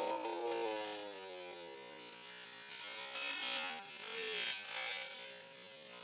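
Microwave oven buzzing and winding down, its hum fading and falling in pitch over the first two seconds, followed by a few soft rustling noises.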